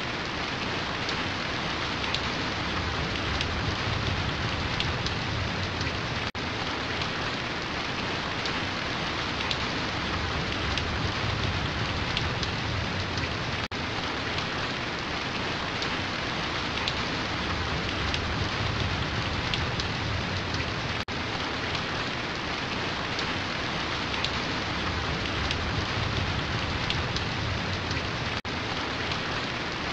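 Steady rain falling, an even hiss with a low rumble underneath, broken only by a few split-second dips in level.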